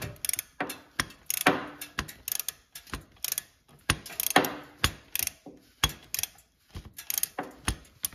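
Hand ratchet clicking in quick runs, about twice a second, as it backs out a motorcycle's 5/8 hex oil drain plug.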